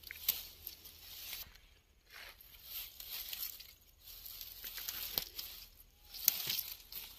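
Grass and feathery shrub stems rustling and crackling as a hand pushes them apart, in several bursts with a few sharp snaps.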